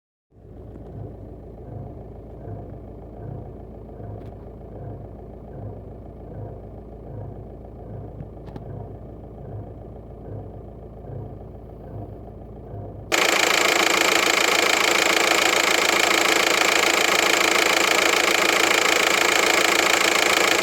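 Volkswagen 1.9 TDI 105 hp four-cylinder turbodiesel idling with a rhythmic low pulse about one and a half times a second. This is the unexplained engine noise the owner places on the right-hand side of the engine. About two-thirds of the way through, a much louder steady rushing hiss cuts in suddenly and covers the engine.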